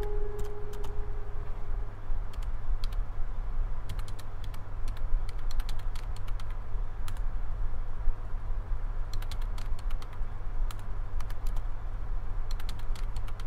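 Typing on a computer keyboard: irregular runs of key clicks over a steady low hum. A held musical tone fades out in the first second or two.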